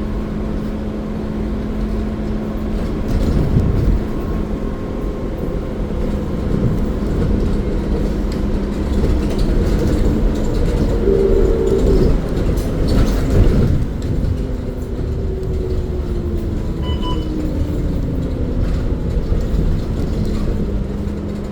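Steady low rumble of a moving vehicle heard from inside while riding, with a motor whine that slowly falls in pitch in the second half.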